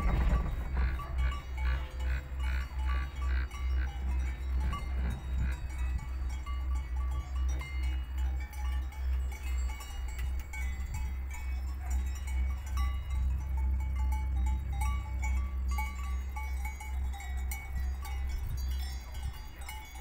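Alpine coaster sled rolling up its metal track: a regular low rumbling thump about twice a second from the wheels running over the rail, with scattered short clinking, bell-like tones.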